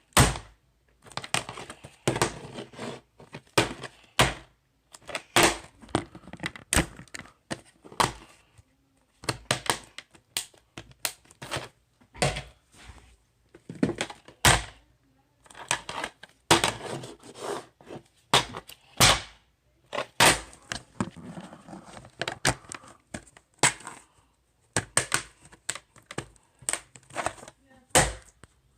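Plastic DVD case and disc being handled: a long run of sharp clicks, snaps and rattles with short crinkly stretches, separated by brief silent pauses.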